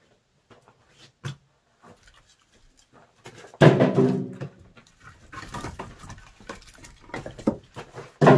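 Footsteps and the knocks of split firewood being handled in a wooden shed, with a sharper knock a little over a second in. A few seconds in comes the loudest sound, a pitched call-like sound lasting about a second, and music starts at the very end.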